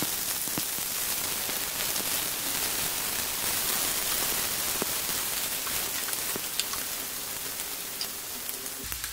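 Chopped onions sizzling in hot oil with cumin seeds in a frying pan, stirred with a wooden spatula: a steady hiss with scattered small pops, easing slightly toward the end.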